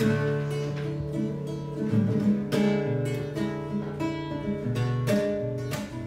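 Acoustic guitar played slowly, chords struck and left to ring, with single picked notes between them.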